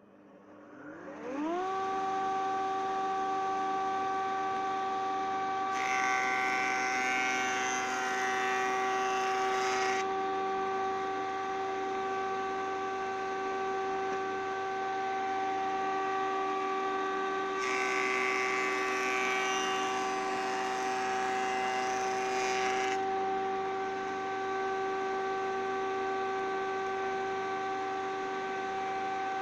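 A Belmash SDMR-2500MAX combination woodworking machine starting up: its motor and cutter spin up with a rising whine over about a second, then run steadily with an even whine. Twice a higher rushing noise joins the machine's sound for several seconds, starting and stopping abruptly.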